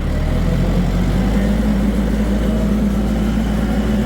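LS XR4040 compact tractor's diesel engine running steadily with its PTO-driven drum mower just engaged and spinning, the hum settling into an even note about a second in. The engine is partway through a DPF regeneration.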